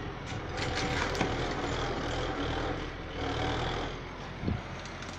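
YuMZ tractor's diesel engine running steadily, with a cluster of clicks and creaks about a second in and a single knock about four and a half seconds in.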